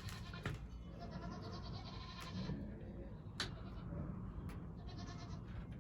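Quavering, bleat-like farm-animal calls: one long call, then a shorter one near the end, with a few faint clicks.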